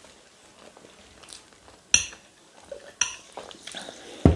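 Cutlery scraping and clinking against plates during a meal, with two sharp clinks about two and three seconds in and a heavy thud near the end.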